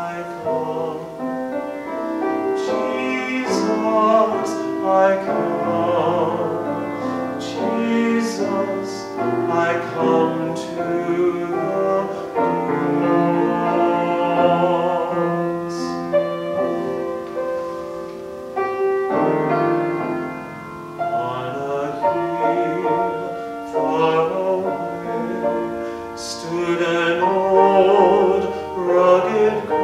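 A man's solo voice singing a hymn-like melody with vibrato, accompanied by piano.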